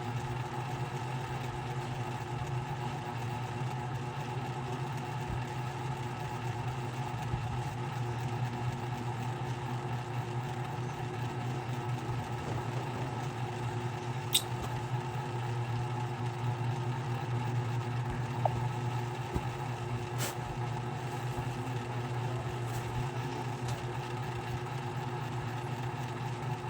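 Ceiling fan running with a steady motor hum, broken by two brief sharp clicks about halfway through.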